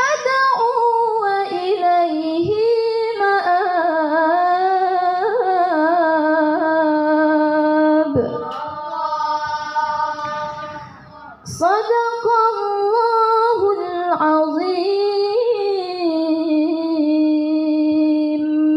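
A young woman reciting the Quran in melodic tilawah style through a microphone: long ornamented phrases with wavering runs and long held notes. A short breath pause comes about eleven seconds in, then a new phrase starts sharply and ends on a long steady note.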